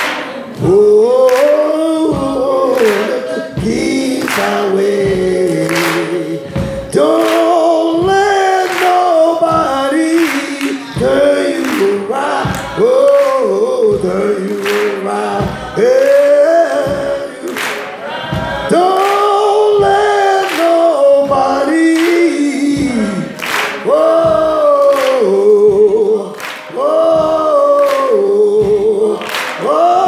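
Men's gospel vocal group singing in harmony, with a sharp clap on every beat, about one a second.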